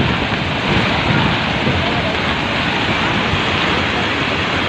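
Flash-flood torrent rushing, a loud steady roar of fast-moving water.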